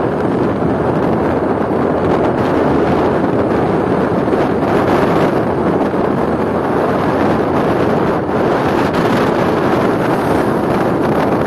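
Steady rush of wind on the microphone of a moving motorcycle, with the bike's engine and road noise blended in beneath it.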